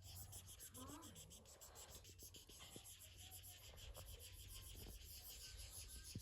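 Faint scribbling of a felt-tip marker colouring in on a colouring-book page, a steady run of quick back-and-forth strokes, with a small click near the end.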